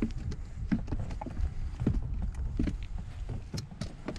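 A run of irregular soft knocks and thuds over a low rumble.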